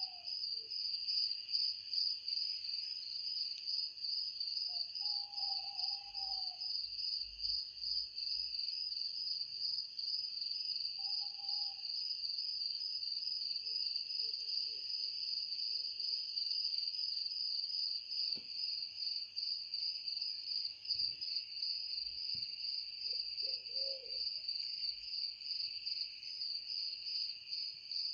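Night chorus of crickets, a steady pulsing trill, with an owl giving short single hoots every few seconds.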